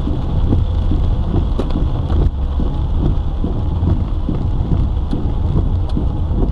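Inside a car driving in rain: a loud, steady low rumble of the car and tyres, with rain striking the roof and windscreen as many small ticks.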